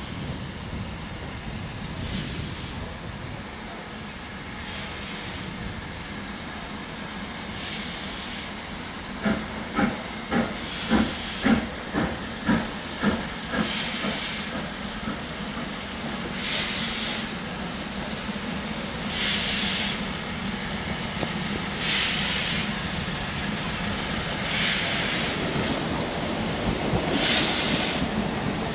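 Steam locomotives LMS 8F 48151, Jubilee 45699 and Royal Scot 46115 drawing slowly into a station, hissing steam. About a third of the way through comes a run of about nine loud beats, two a second, then short bursts of steam hiss every two or three seconds. Near the end a passenger multiple-unit train runs past on the nearer line.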